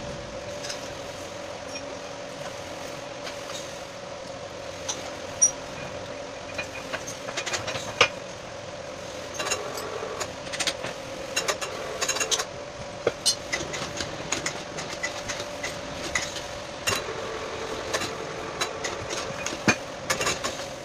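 Metal clinks, clicks and knocks of chain hoist parts, chain links and hand tools being handled, scattered at first and coming thick and fast from about nine seconds in. Under it runs a steady hum.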